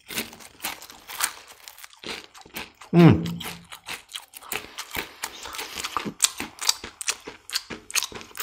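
My Chiu potato chips crunching as they are bitten and chewed, a close run of sharp cracks. About three seconds in comes a short falling vocal hum, the loudest sound.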